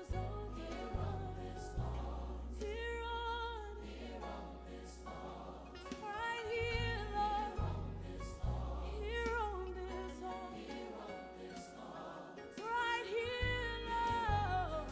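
Worship song: voices singing long held, wavering notes over instrumental accompaniment with a sustained bass line.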